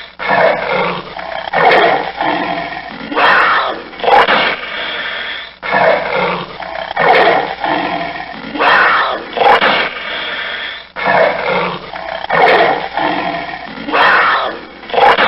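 Panther roaring in a long, steady series of rough calls, about one a second, each starting loud and trailing off.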